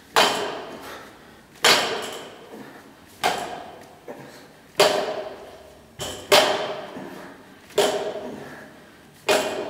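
An 80 kg Olympic barbell with rubber bumper plates is set down on a plywood deadlift platform at every rep of a fast timed set. Each rep gives a sharp thud that rings and fades over about a second, seven times, roughly one every one and a half seconds.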